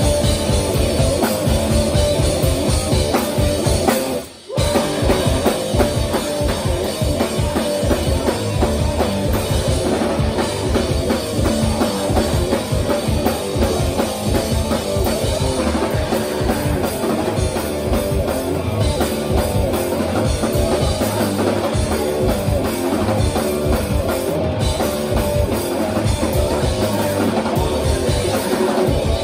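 Live rock band playing loud: drum kit, distorted electric guitars and bass. The band stops dead for about half a second about four seconds in, then comes back in.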